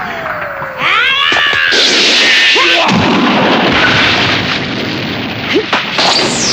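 Anime fight sound effects: a long boom with crashing, breaking rock as the Power Pole strikes, and a falling swish near the end.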